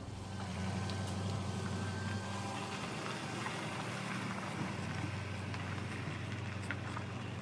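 Vehicle engine running steadily, a low even hum with no change in pitch.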